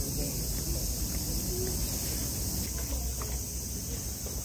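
A steady high-pitched drone of insects over a low rumble, with a few faint ticks scattered through it.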